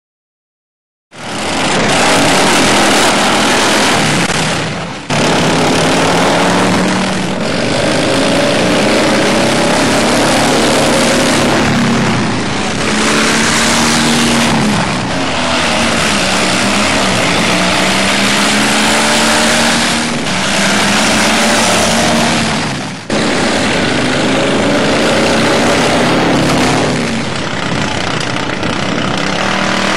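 Racing riding lawnmower engines running loud, their pitch rising and falling as they rev. The sound starts abruptly about a second in and changes with sudden cuts every few seconds, as one clip follows another.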